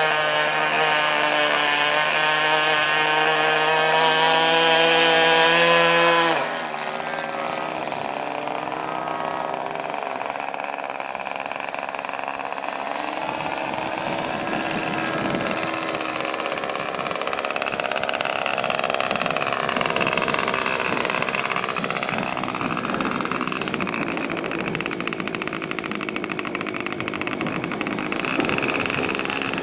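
Saito 82 four-stroke glow engine of a radio-controlled Seagull Decathlon model airplane in flight. It runs at high power with a steady pitch, is throttled back sharply about six seconds in, then keeps running at lower power with its pitch rising and falling as the plane manoeuvres.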